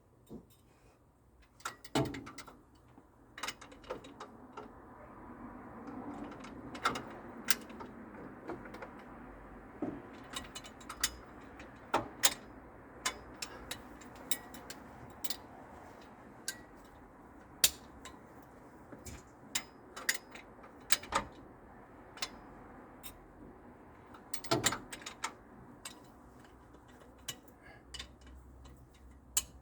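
Wrench work on the engine's cylinder head bolts: scattered, irregular metallic clicks and clinks over a low rustle of handling, with no steady rhythm.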